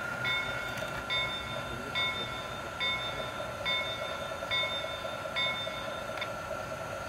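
Model diesel locomotive's sound-system bell ringing evenly, just over once a second, about seven times before it stops near the end. Under it is the steady whine and hum of the running model train.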